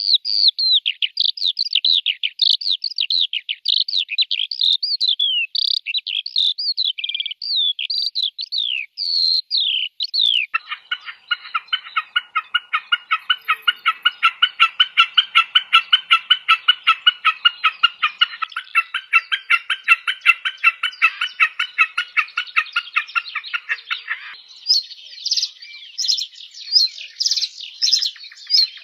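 Songbirds singing, three different songs in turn. First comes a fast series of high, sharply falling chirps. About ten seconds in, these give way abruptly to a steady rapid trill of about five notes a second. Near the end, that gives way to higher, busier chirping.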